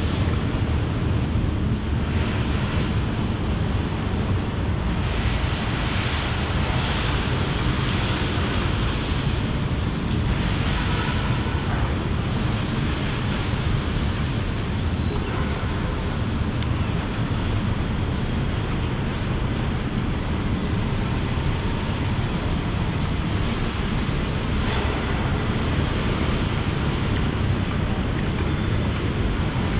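Steady rushing noise of wind on the microphone, over a low rumble of city traffic.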